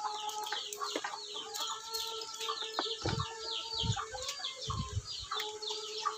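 Chickens clucking, with quick high chirps repeating several times a second throughout and a few low thumps.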